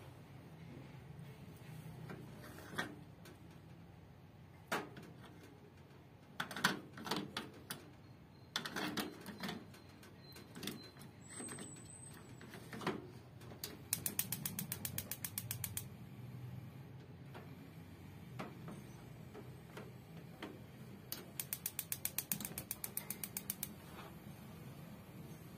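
Rinnai tabletop gas stove being readied and lit: scattered clicks and knocks as the battery is fitted in its front battery box, then two runs of rapid electric igniter ticking, about ten a second for roughly two seconds each, as each of the two burners is lit.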